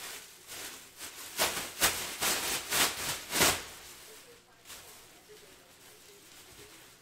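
Plastic packaging being handled: a flurry of crinkling and rustling strokes, loudest from about one and a half to three and a half seconds in, then fading to light rustles.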